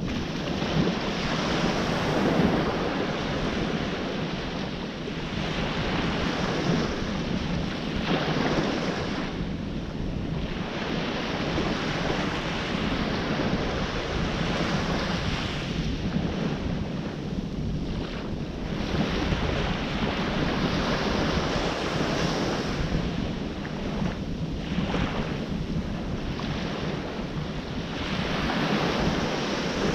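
Ocean surf washing ashore in waves that swell and ease every few seconds, with wind buffeting the microphone.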